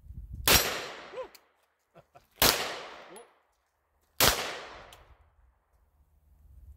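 Walther PDP 9mm semi-automatic pistol fired three times, about two seconds apart, each shot trailing off in a fading echo.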